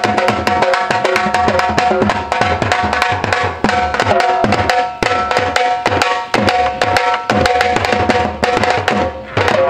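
Two dhols, double-headed barrel drums, played together with sticks in a fast, dense rhythm of strokes.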